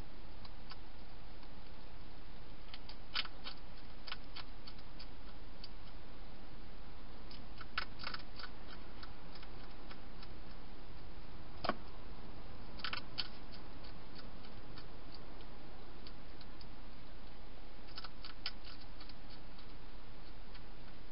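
A hedgehog crunching dry food inside a plastic feeding box: short bursts of sharp crunching clicks every few seconds, with one louder knock about halfway through, over a steady hiss from the camera's microphone.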